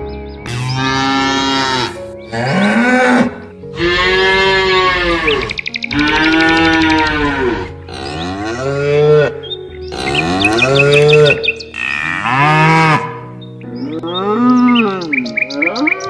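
Cattle mooing: a run of about eight long moos, one after another, each rising and then falling in pitch.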